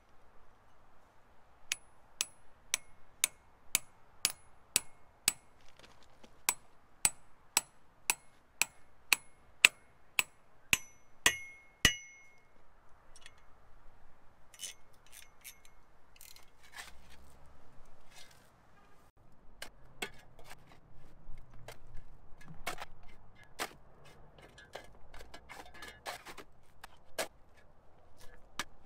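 A hammer driving steel concrete anchors through a steel mounting plate into a cinder-block wall: about twenty sharp, ringing metallic strikes, roughly two a second, over the first twelve seconds. After that come sparser clicks as a wrench turns the anchor nuts, then irregular clicks and scraping, with a shovel digging in dirt near the end.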